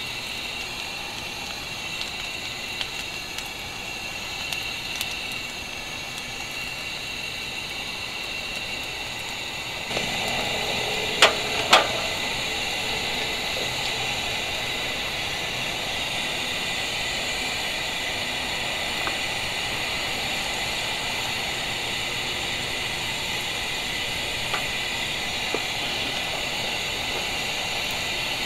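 Thick dry-cured bacon frying in a pan on a camp stove: a steady sizzling hiss that gets louder about ten seconds in, with two sharp metal clinks just after.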